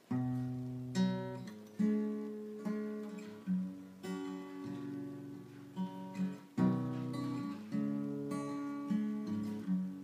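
Acoustic guitar playing a song's intro: chords struck and let ring, with a fresh attack about once a second.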